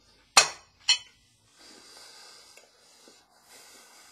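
Two sharp clinks about half a second apart, as a fork and plate are set down, then faint chewing with breathing through the nose around a mouthful of cake.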